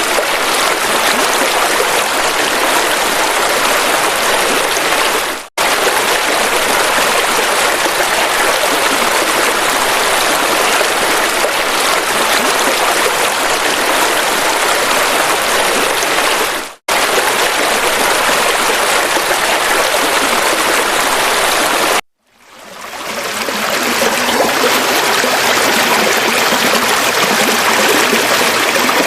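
River water flowing and splashing, a steady rushing. It cuts out suddenly three times, about five, seventeen and twenty-two seconds in; the last time it fades back in over about a second, as at a splice between recordings.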